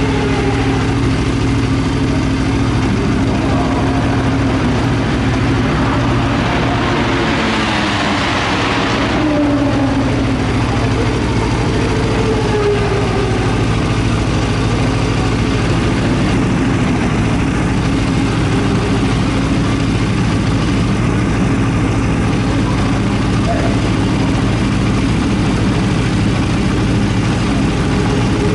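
Aprilia RSV4's V4 engine idling steadily through an Akrapovič titanium exhaust.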